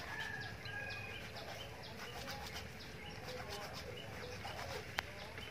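Birds chirping repeatedly in the background over a low outdoor hiss, with a single sharp click near the end.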